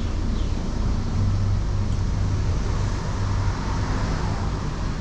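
Road traffic noise: a steady low engine hum under a wash of tyre and road noise that swells slightly a few seconds in.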